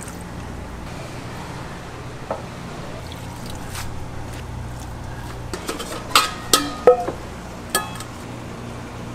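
Dishes and utensils clinking in a food-stall kitchen: about four sharp clinks with a brief ringing tone, six to eight seconds in, over a steady low hum.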